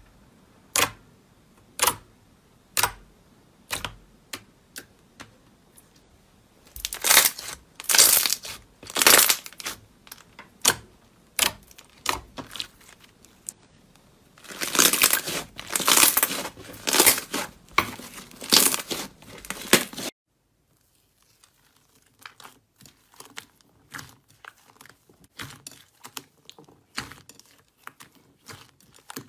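Slime being pressed and pulled, giving sharp crackling pops about once a second, then denser runs of crinkly crackling. After an abrupt cut about two-thirds of the way in, it gives way to quieter, softer clicking.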